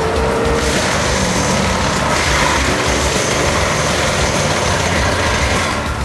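A John Deere 333C compact track loader's engine runs under load while its Denis Cimaf DAF-180D forestry mulcher head spins and shreds brush and small trees, giving a dense grinding, hissing noise over the engine. The shredding noise sets in just under a second in and eases shortly before the end.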